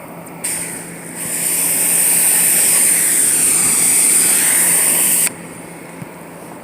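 A 13-horsepower pressure washer at about 800 PSI spraying water onto an RV roof: a short burst, then a steady loud hiss of spray for about four seconds that cuts off suddenly when the trigger is released. The washer's engine keeps running as a steady low hum underneath.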